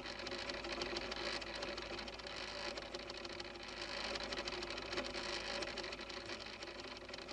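Lie detector's pen chart recorder running, feeding fanfold paper past its recording pen with a steady mechanical hum and fine, rapid ticking.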